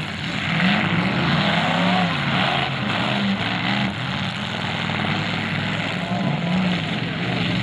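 Several demolition derby cars' engines revving hard at once, their pitch rising and falling as the drivers push against each other, over a steady din.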